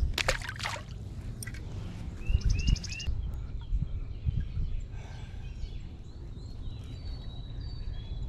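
A brief splash as a small crappie is let go back into the creek. Birds then call: a short buzzy trill and three quick chirps a couple of seconds in, and a few thin high whistles near the end, over a steady low outdoor rumble.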